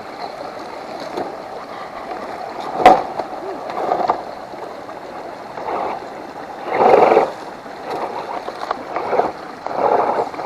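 Water splashing and gurgling around a 1:10 scale RC crawler wading through a pond, in uneven surges, with a sharp knock about three seconds in.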